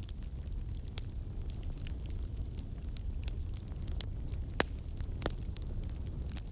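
Wood fire crackling in a fireplace, with scattered sharp pops over a steady low rumble; the loudest pop comes about four and a half seconds in.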